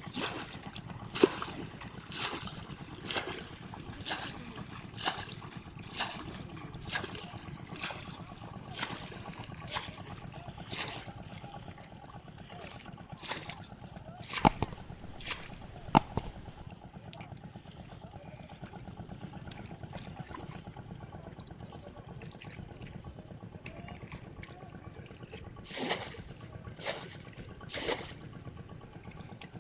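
Water splashing in a steady rhythm about once a second, then only now and then after about eleven seconds, over a steady low hum.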